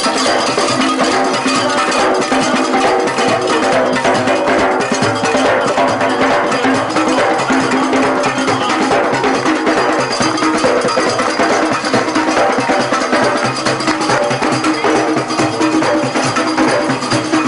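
Junkanoo street band playing: hand drums and cowbells beat a fast, dense, continuous rhythm, with pitched instruments sounding over it.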